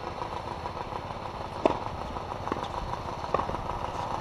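Tennis balls being struck by rackets and bouncing on a hard court during a rally: three sharp pops in the second half, the first the loudest. A steady background rumble runs underneath.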